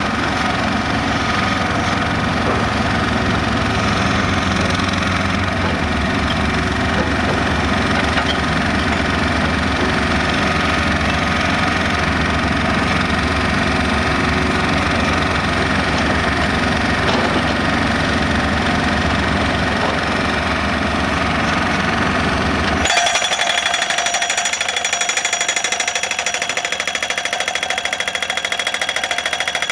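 Solar pile driver's percussive hammer pounding a post into the ground in a fast, continuous rattle of blows. About 23 s in the sound changes abruptly, losing its deep part and turning thinner and brighter.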